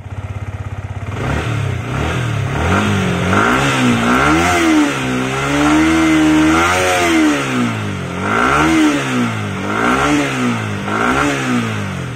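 Yamaha R15's 155 cc single-cylinder engine revved through its stock exhaust while standing still. It idles steadily at first, then a series of throttle blips rise and fall in pitch, one held for about two seconds in the middle, and several quicker ones come near the end.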